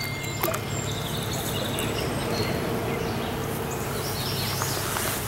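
Steady rush of flowing stream water, with a few short bird chirps above it.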